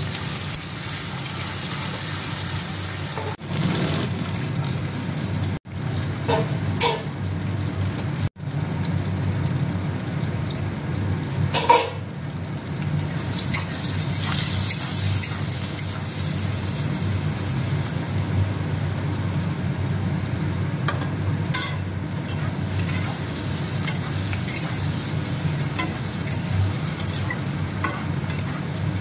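Sliced onions and dried red chillies frying in oil in a metal wok, sizzling steadily over a low steady hum. A spatula scrapes and clatters against the pan now and then, loudest about twelve seconds in.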